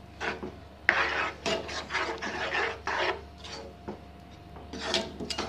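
A white plastic spatula scraping and stirring thick dal against the bottom of a non-stick frying pan: a run of scraping strokes for about two seconds, a short lull, then more strokes near the end.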